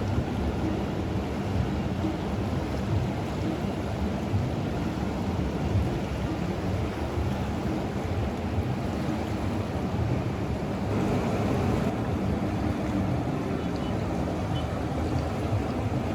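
Steady rushing of the Ganga's flowing water, mixed with wind buffeting the microphone.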